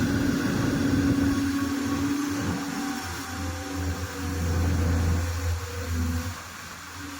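Heavy earthmoving machine's diesel engine running, with a deep rumble that swells over the middle seconds and drops away about six seconds in.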